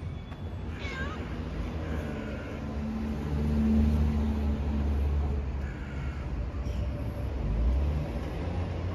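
A cat meowing a few times in short calls, the clearest about a second in, over a low rumble that swells and fades in the middle.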